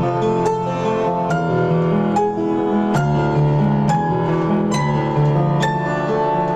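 Instrumental piano melody with the notes set from the digits of pi: single struck notes a little under a second apart over held lower notes.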